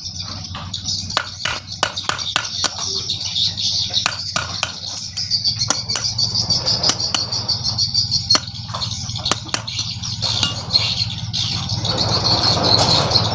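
Irregular sharp clicks and knocks of tools working on a motorcycle engine, over birds chirping steadily. A rougher, noisier sound builds near the end.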